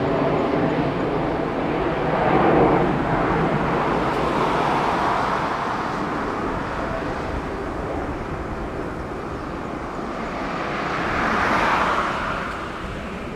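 Boeing 747-8F freighter's four GEnx turbofan engines at takeoff climb power: a broad, rushing jet noise that swells a couple of seconds in and again near the end, then begins to fade as the aircraft climbs away.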